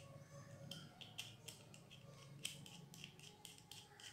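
Faint, irregular small metallic clicks and ticks, a few a second, of a screwdriver and metal spinner parts being handled while fastening an aluminium spinner cone and propeller onto an RC plane's electric motor.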